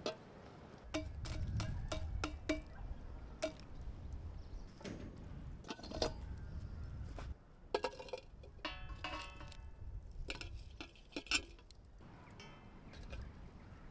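Kitchen dishes and utensils clinking: a quick run of sharp clinks with a short ring in the first few seconds, then more scattered clinks and knocks later.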